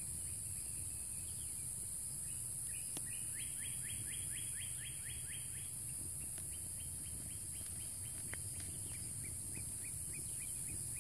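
A bird calling a rapid series of short, high notes, three to five a second, in two runs, over a steady high insect drone; a couple of sharp clicks near 3 s and 8.5 s.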